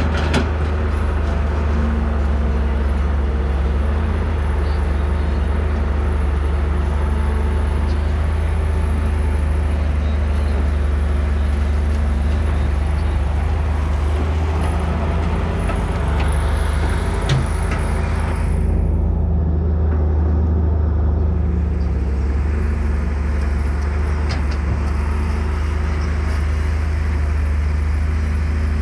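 JCB tracked excavator's diesel engine running steadily under load while the machine digs mud out of a canal bank with its bucket. A single short knock sounds about 17 seconds in.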